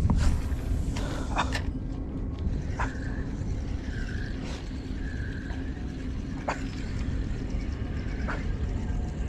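Wind rumbling on the microphone on open water, under a faint steady low hum, with a handful of sharp clicks scattered through.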